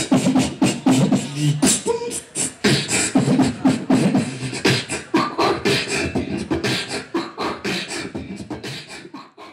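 Beatboxing into a handheld microphone: a fast run of sharp mouth clicks and thumps mixed with short hummed low notes, fading toward the end.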